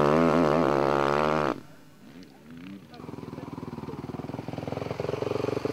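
Honda CRF450R single-cylinder four-stroke engine pulling hard under throttle on a dirt start, cutting off abruptly about a second and a half in. After a short quiet gap, the same kind of engine thumps at low revs, growing louder toward the end.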